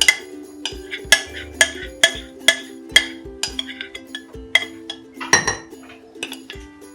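Background music with a steady beat: sharp, bright percussive hits about twice a second over held notes and a recurring bass.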